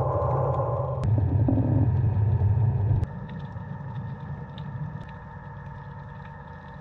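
Muffled low rumble of underwater ambience picked up through a camera's waterproof housing, with faint steady tones above it. It changes abruptly about a second in, then drops to a quieter rumble about three seconds in.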